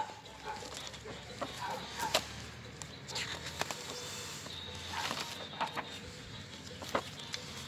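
Handling noise from paper sheets and plastic wrapping: irregular crinkles and sharp taps every second or so, with a few faint short chirps in the first two seconds.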